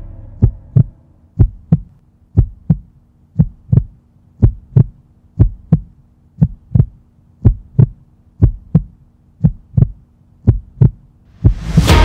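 Heartbeat sound effect: paired low thumps, lub-dub, about once a second, over a faint steady hum. Rock music with guitar bursts in near the end.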